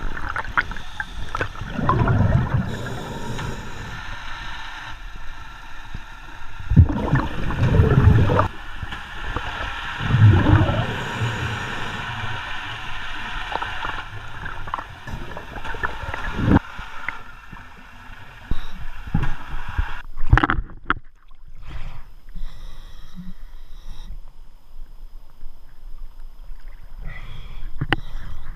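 Open-circuit scuba regulator exhalations underwater: bursts of bubbles gurgling and rumbling, each about a second long, every few seconds. Later the camera breaks the surface and the sound turns to light water splashing.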